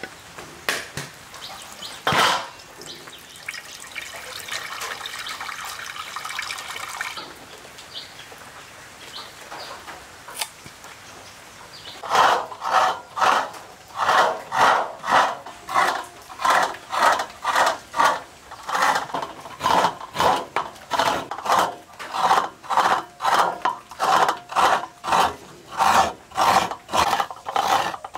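Soaked rice being washed by hand in a pot of water: a few knocks at first, a stretch of pouring water, then a steady run of swishing, rubbing strokes, about one and a half a second, from the halfway point on.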